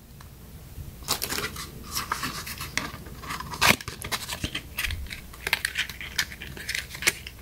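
Hands handling cosmetics packaging: a steady run of small clicks, scratches and rustles as a cardboard product box is turned over and fingered.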